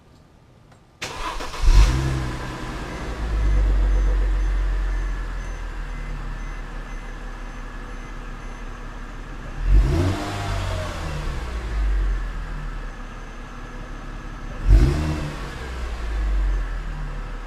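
2008 Mercedes C350's 3.5-litre V6 starting about a second in, flaring up briefly and settling into a fast idle, heard at the exhaust tip. It is revved briefly twice, about five seconds apart, with a throaty exhaust note.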